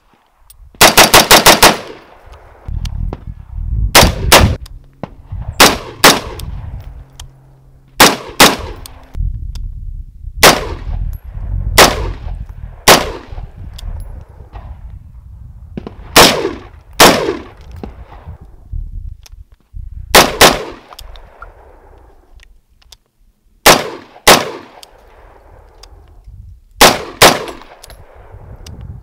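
Spikes Tactical AR-15 midlength rifle in .223 firing semi-automatic: a fast string of about ten shots about a second in, then mostly quick pairs of shots every few seconds, each crack trailing an echo.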